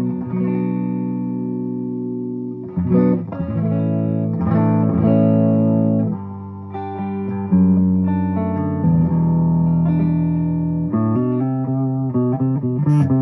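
Gibson ES-335 electric guitar on its neck pickup, played through a Fuchs Train-45 valve amp with 6V6 power valves into a single 12-inch Vintage 30 speaker cabinet. A series of chords is struck and left to ring, a new one every second or two, with quicker single notes near the end.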